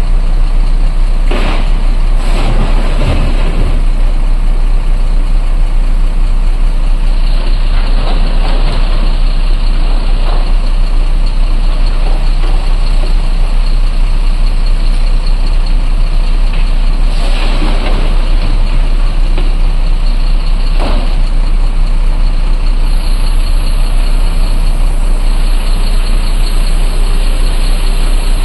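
Heavy diesel engines of a crawler excavator and a dump truck running steadily, with a rumble. Loud crashes of rock come now and then: a cluster in the first few seconds and single ones near the middle, as the excavator bucket drops broken stone into the truck's steel bed and digs into the rock pile.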